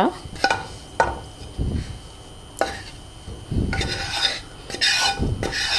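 Wooden spatula scraping across a non-stick frying pan and knocking against it as cooled roasted onion and coconut are pushed into a steel grinder jar. There are a few sharp knocks, then spells of scraping.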